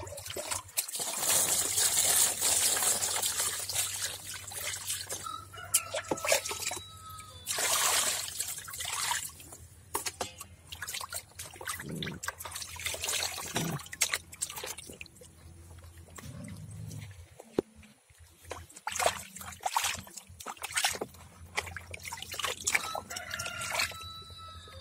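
Water sloshing and splashing in a plastic basin as hands rub and wash a whole scored fish, in irregular bursts, loudest in the first few seconds.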